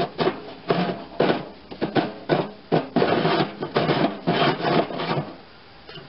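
Rusty steel snowblower discharge chute being turned by hand on its ring gear: a run of rasping, grinding scrapes, about two or three a second, stopping about five seconds in. The chute is binding and not turning smoothly, probably from rust underneath.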